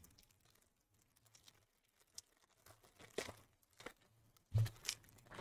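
A foil trading-card pack wrapper crinkling and tearing as it is opened by hand: faint scattered crackles, then a louder crinkle about four and a half seconds in.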